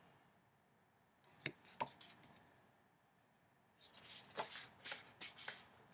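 Oracle cards being handled: two light taps about a second and a half in, then a run of soft clicks and rubbing near the end as a card is laid down and the next is picked up.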